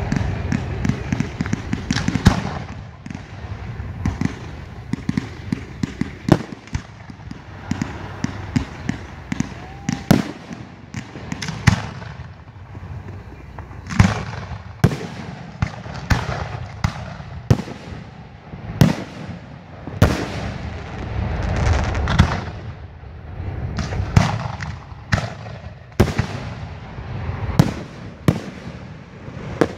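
Fireworks display: aerial shells bursting one after another in sharp bangs, each followed by an echoing tail, with a quick run of small pops in the first couple of seconds.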